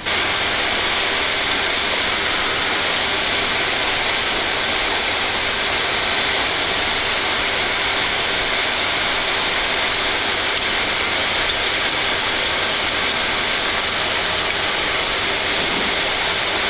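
Steady, even rushing noise on a Boeing 747-8 flight deck, with its four GEnx-2B engines just started and running, cutting in abruptly.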